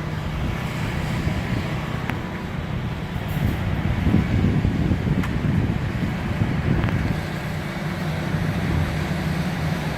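Concrete mixer truck's diesel engine running steadily, a low even rumble, with a few faint clicks from the pour.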